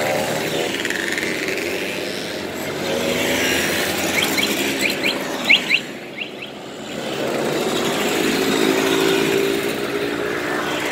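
A stream of East German two-stroke mopeds, scooters and small motorcycles riding past one after another, their engines buzzing and swelling and fading as each goes by. A quick run of short, high beeps sounds around the middle.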